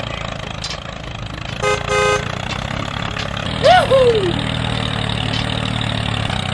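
Steady tractor-engine running sound for a toy mini tractor on the move. A short horn toot comes about two seconds in, and a brief voice exclamation near the middle.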